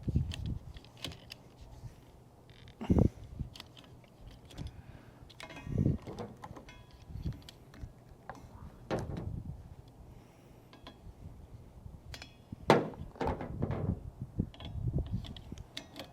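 Irregular clicks, knocks and rustling from a windshield wiper blade being handled and fitted onto the wiper arm, with a few louder knocks spaced a few seconds apart.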